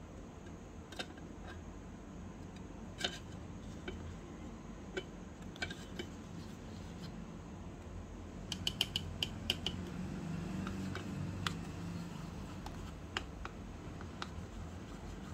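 Scattered light clicks and taps of a kitchen utensil against cookware, with a quick run of about eight taps around the middle, over a low steady hum.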